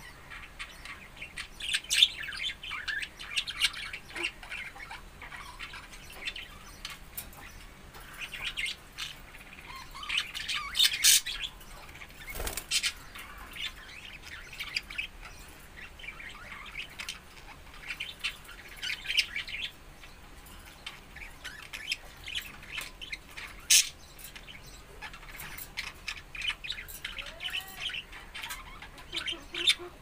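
A flock of caged budgerigars chattering: many short chirps, warbles and squawks in overlapping bursts, with a single sharp knock about halfway through.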